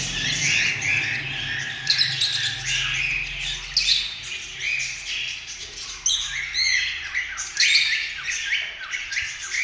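Cockatiel calling: a rapid run of short, high chirps and squawks, some sweeping up or down in pitch.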